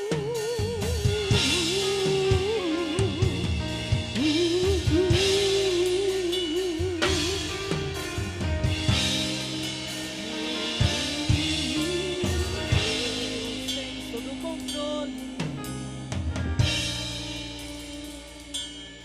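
A live band plays a worship song intro: a drum kit with snare and bass drum, steady bass notes, and a lead melody with vibrato over them.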